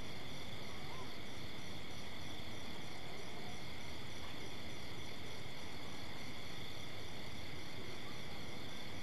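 Steady chirring of night insects, an unbroken high drone, over a low background rumble.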